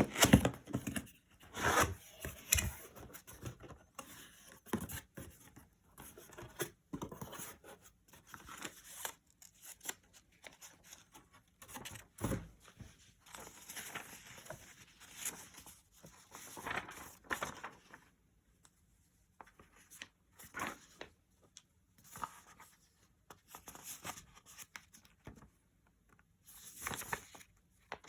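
Intermittent handling noises: scattered rustling, tearing and scraping sounds with short pauses between them, like packaging being handled and opened. No motor is running.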